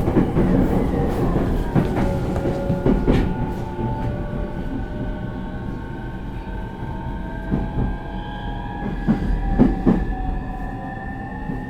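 Running sound inside a JR East E231 series suburban train with a Hitachi IGBT VVVF inverter: the traction motors whine in several tones that slowly glide in pitch. The wheels clack over rail joints in two clusters, near the start and again about three quarters of the way through.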